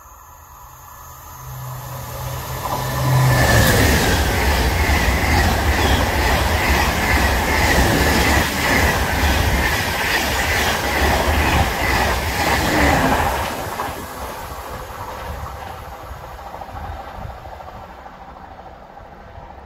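TGV inOui high-speed train passing through a station without stopping. It builds over the first few seconds, is loud for about ten seconds with a rhythmic wheel clatter and a steady whine, then fades away.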